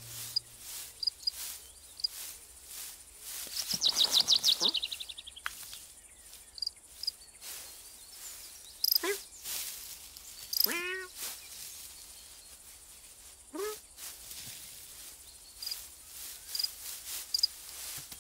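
Countryside ambience: birdsong, with a loud, fast trill of chirps falling in pitch about four seconds in and a few shorter, lower calls later, over a steady high hiss.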